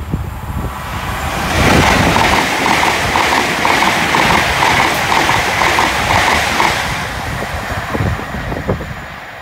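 Two coupled Hitachi Class 800 trains passing at speed: a rushing noise of wheels on rail that builds about a second in, with a quick regular clicking beat of wheelsets running over the track, then dies away after about seven seconds.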